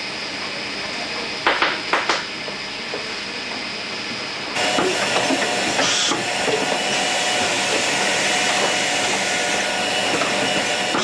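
Lipstick assembly-line machinery running with a steady hiss, broken by three sharp clicks about one and a half to two seconds in. About four and a half seconds in it suddenly gets louder, with a steady whine over the hiss.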